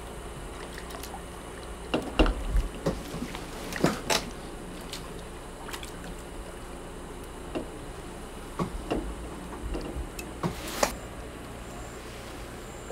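An angler handling a fishing rod and tackle on a wooden platform over water while landing a small fish: scattered light clicks and knocks over a faint steady background, with a short louder rush of noise about ten and a half seconds in.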